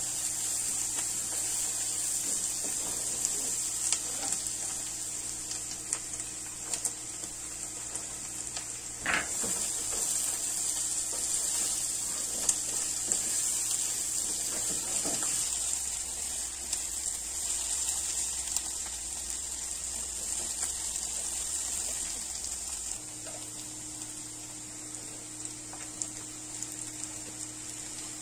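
Diced onion and vegetables sizzling in oil in a nonstick saucepan: a steady high hiss, with small scrapes and taps from a silicone spatula stirring.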